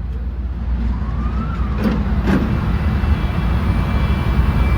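Motorized shooting-range target carrier running along its overhead track, bringing the paper target back to the shooting booth: a steady low rumble that grows gradually louder as it approaches.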